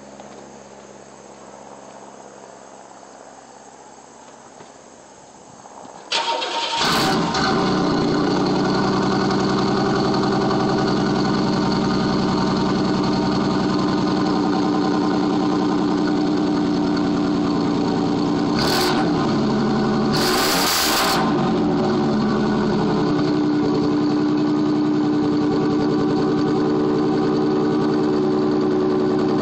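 Cold start of a 1993 Pontiac Firebird's 3.4-litre V6 through a Flowmaster exhaust, heard at the tailpipes: after about six seconds of quiet the engine is cranked and catches suddenly, then settles into a loud, steady idle.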